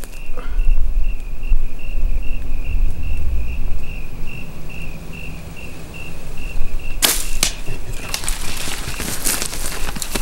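Cricket chirping steadily, about three chirps a second. About seven seconds in, two sharp snaps break in, followed by a run of loud crackling and rustling that drowns the cricket.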